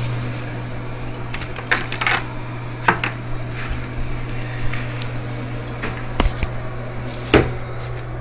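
Scattered clicks and knocks of objects being handled and set down, the sharpest a few seconds in and again near the end, over a steady low hum.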